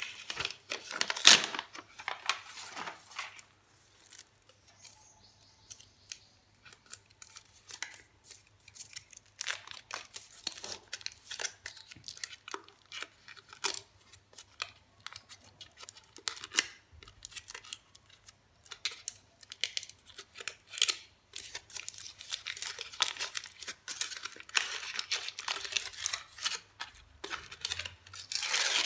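Paper sleeve and gold foil wrapper of a Cadbury Dairy Milk Silk Bubbly bar being peeled and torn open by hand: irregular crinkling and tearing. It is sparser for a few seconds after the start and busiest over the last several seconds.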